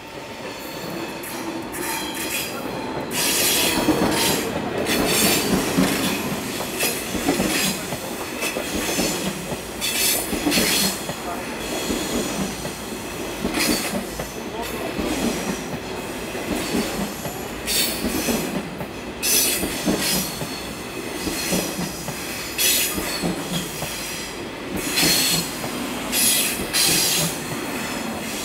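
A train passing through a railroad level crossing. The rumble of its wheels on the rails grows louder a few seconds in and holds steady, with repeated loud metallic clacks every second or two.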